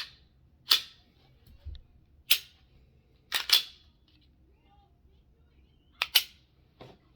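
Sharp metallic clacks of a hand-built Polymer 80 pistol being cycled by hand, its slide racked and its action worked. There are about seven separate clacks, a couple of them in quick pairs.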